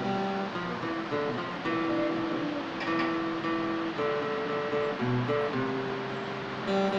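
Acoustic guitar played slowly: a line of picked notes and chords, each held for about half a second to a second before the next.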